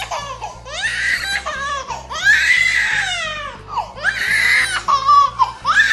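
Young child crying loudly in four long, wavering wails with short breaths between them.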